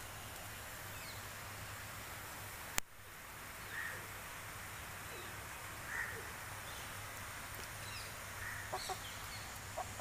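Aseel chickens clucking softly a few times, a couple of seconds apart, over a steady faint hiss, with one sharp click about three seconds in.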